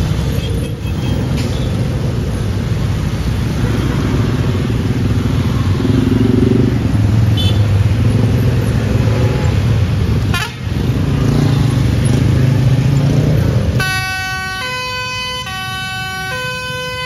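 Loud rumble of a heavy vehicle's engine and road noise, then about three-quarters of the way in a basuri telolet horn cuts in, playing a tune of clear held notes that step up and down in pitch.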